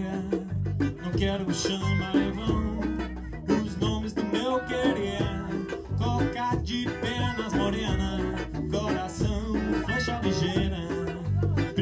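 Live band playing an upbeat Brazilian song: electric guitars, bass guitar and congas, with a man singing.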